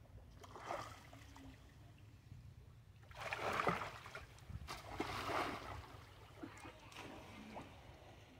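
Monkeys splashing in a shallow pool: a few short bouts of splashing water, the loudest about three to four seconds in.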